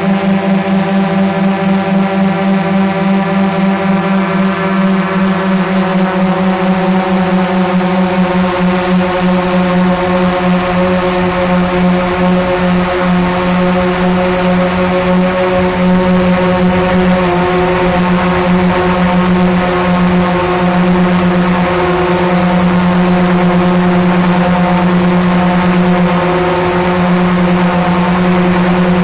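Quadcopter drone's motors and propellers humming in flight, picked up close from a camera mounted on the drone itself. A steady multi-tone hum with a pulsing beat between the rotors that evens out in the last third.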